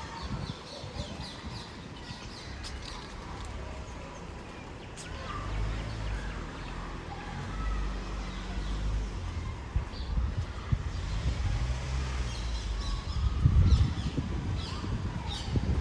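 Small birds chirping in short repeated calls, clustered at the start and again near the end, over a low outdoor rumble that swells about two-thirds of the way in.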